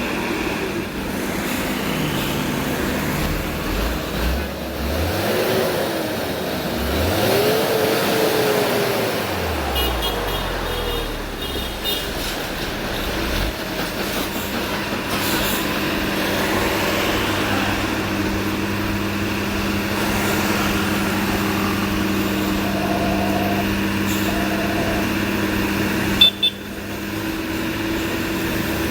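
Heavy truck diesel engines labouring up a steep climb. The engine pitch rises and falls as the revs change in the first ten seconds, then settles into a steady drone. A short horn toot sounds about ten seconds in, and there is a sharp knock near the end.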